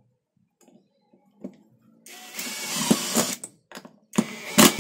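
A brushless cordless impact driver on speed 1 drives a screw into a pine block. It runs for about a second and a half from about two seconds in, then gives a louder, shorter burst near the end.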